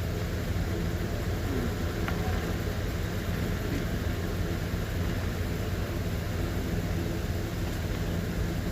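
Car engine idling, a steady low hum that does not change, with a single faint click about two seconds in.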